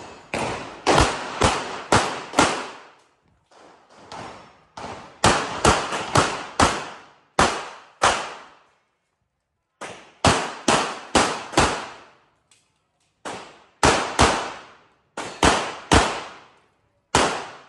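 Pistol shots fired in rapid strings of two to about eight, with pauses of a second or two between strings as the shooter moves to new targets; each shot is followed by a short echo.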